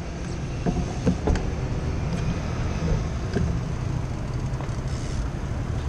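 Steady low rumble of distant road traffic, with a few faint clicks.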